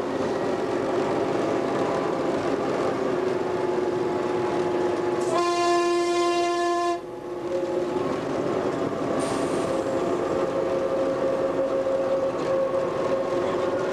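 Narrow-gauge Lxd2 diesel locomotive running along the line, with one horn blast lasting under two seconds about five seconds in that cuts off abruptly.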